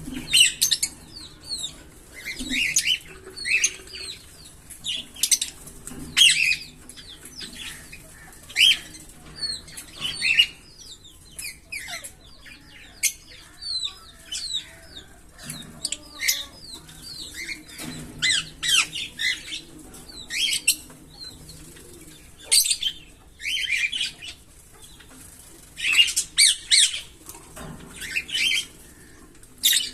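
A pair of green Fischer's lovebirds chirping: sharp, high-pitched chirps in quick clusters, repeated every second or so with short pauses between.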